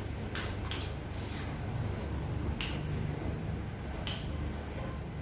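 Joints popping during a chiropractic adjustment: a few sharp cracks, a second or more apart, over a steady low hum.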